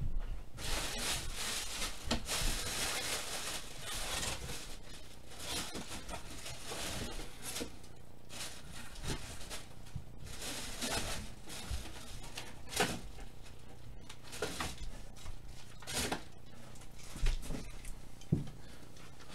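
Rustling and handling noises with a handful of sharp clicks and taps, as a magnetic card holder is fetched and handled.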